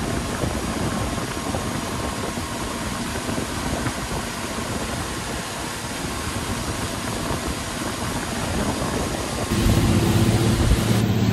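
Fishing boat under way: its engine running beneath a steady rushing noise. About nine and a half seconds in, the sound changes abruptly to a louder, steady engine drone with a low hum.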